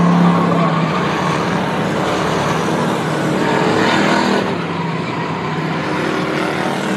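Short-track stock car engines running hard as two cars race side by side past the stands, the engine note rising and then falling as they go by about four seconds in.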